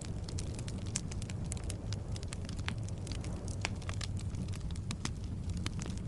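Wood logs burning in a fireplace: a steady low roar of the flames with frequent sharp, irregular crackles and pops.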